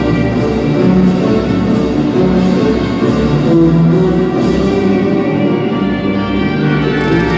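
Music with a steady beat, played for a couple's dance routine. The high percussion drops out about two-thirds of the way through.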